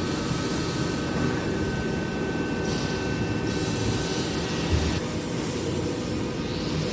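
Steady mechanical running noise with a faint high whine in the first half and a short low thump about two-thirds through.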